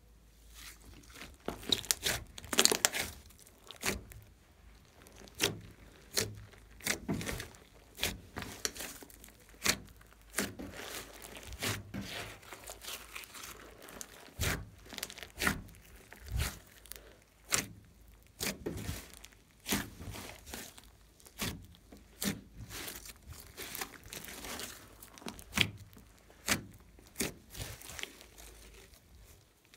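Hands squishing, stretching and folding a large glossy slime mixed with clay and foam: irregular sticky pops and crackles, several a second, as it is pulled apart and pressed together.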